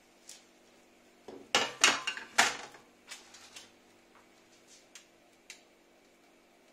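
Metal baking tray set down on a stainless-steel rod trivet: a clatter of several sharp metallic knocks about a second and a half in, followed by a few lighter clicks.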